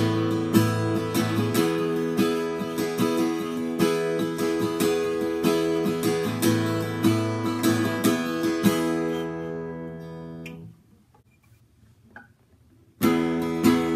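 Steel-string acoustic guitar with new D'Addario EXP19 strings, played chords with a steady run of attacks. A last chord rings out and fades about three quarters of the way in, there is a short silence, and the playing starts again just before the end.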